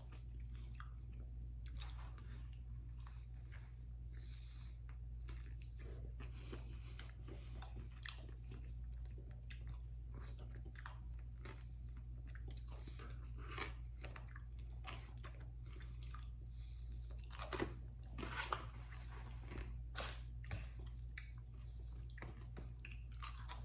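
A man biting and chewing bone-in chicken wings close to the microphone, with irregular small crunches. The sounds are loudest in a few bites about eighteen to twenty seconds in. A steady low hum runs underneath.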